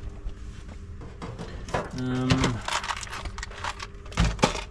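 Small objects being rummaged and shifted in a metal box: a run of clicks, knocks and plastic-bag rustling, with a heavy thud near the end. A man gives a short hummed "mmm" about two seconds in.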